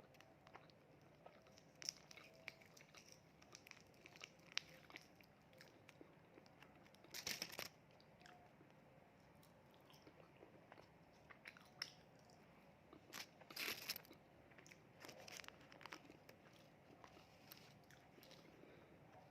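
A person eating fast food close to the microphone: quiet chewing with scattered small crunchy clicks, and a few louder crunching bursts about a third of the way in and again a little past two-thirds.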